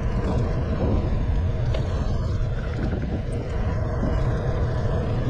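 Steady low wind rumble buffeting the microphone of a camera on a moving road bike, with road noise underneath.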